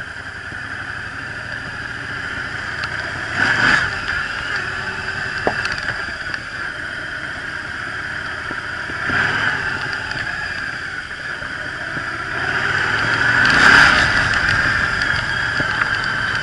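Yamaha Drag Star 1100's air-cooled V-twin engine running as the motorcycle rides slowly over rough ground. It swells louder three times, about four, nine and fourteen seconds in.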